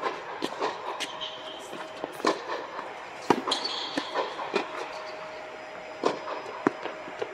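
Tennis ball struck by rackets and bouncing on a hard indoor court: sharp, echoing knocks every half second to a second or so, over a steady hum.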